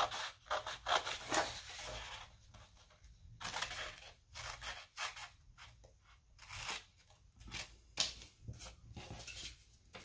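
Red-handled craft scissors cutting black construction paper: an irregular run of short snips, the blades closing through the paper every fraction of a second.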